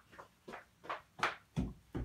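Footsteps on a floor, an even stride of about three steps a second, the steps getting louder and heavier near the end.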